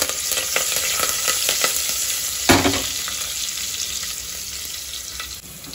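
A tempering of mustard seeds, cumin, garlic, curry leaves and dried red chillies sizzling in hot oil and ghee, with scattered crackles. A single knock comes about two and a half seconds in, after which the sizzle slowly dies down.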